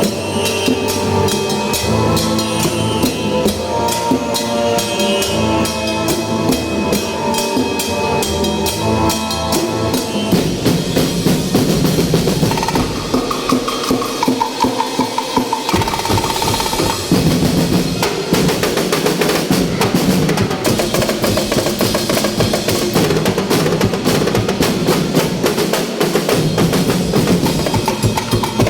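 Percussion group playing drums in a fast, dense beat, with bass drum and snare drums and rolls. For about the first ten seconds a pitched melody sounds under the drumming, and a short high tone comes a little past the middle.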